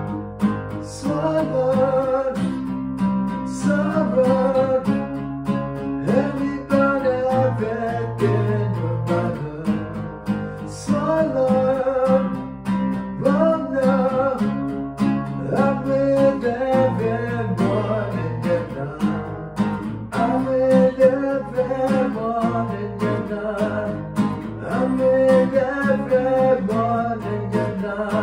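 Acoustic guitar being played, with a man singing along to it.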